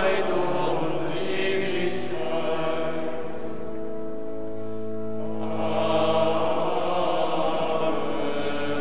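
Monastic choir singing Vespers chant, long held notes ringing in a large stone church.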